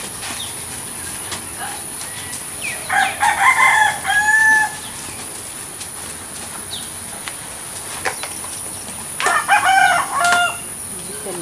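Rooster crowing twice, one crow about three seconds in and another about nine seconds in, each a couple of seconds long and ending on a held note.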